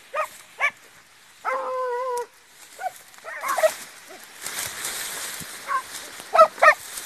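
Pack of hunting dogs giving tongue while chasing a paca: short yelping barks, one drawn-out bay about a second and a half in, and a quick run of barks near the end.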